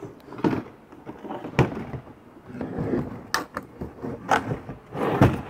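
Hollow plastic spreading tank knocking and scraping against the DJI Agras T50 drone's frame as it is worked into its mount, several sharp clunks with rustling and sliding in between.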